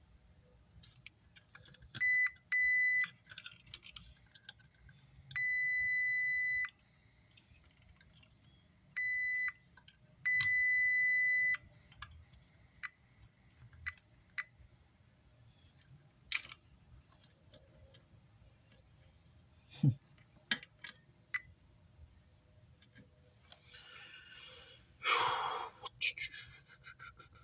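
A digital multimeter's continuity beeper gives steady high-pitched beeps, two short, then one long, then a short one and a long one, as the probes touch points on an amplifier circuit board while it is checked for shorts. Light probe clicks follow, then a sharp knock, and a louder rustle near the end.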